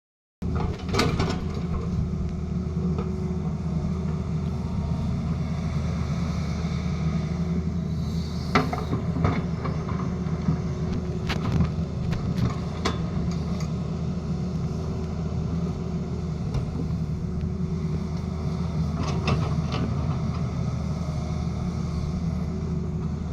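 Tata Hitachi excavator's diesel engine running steadily under load, with several sharp knocks and clanks from the work scattered through it.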